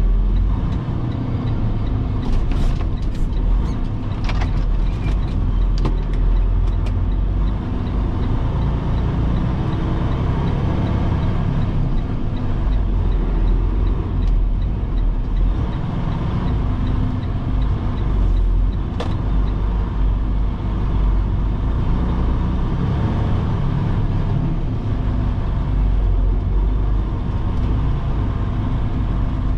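Semi-truck's diesel engine and road noise heard from inside the cab, a steady low rumble as the truck rolls slowly into a dirt yard. A few sharp clicks or knocks sound between about two and seven seconds in, and one more past the middle.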